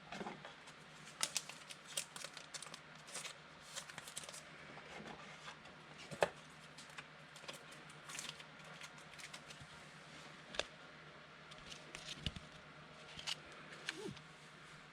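Faint, irregular clicks and rustles of trading cards being handled and slid against one another, busiest in the first few seconds.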